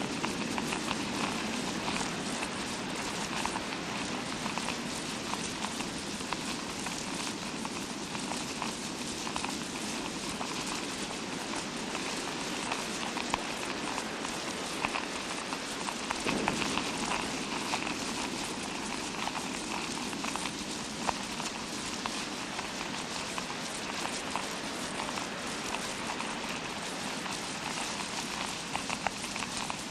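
Fake rain sound effect: a steady, dense patter of tiny ticks over a hiss, imitating rainfall, with a few slightly louder ticks scattered through.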